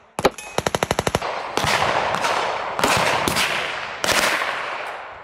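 Gunfire on an outdoor range: a rapid string of about a dozen sharp shots in about a second, then louder single shots every half second or so, each with a ringing echo tail.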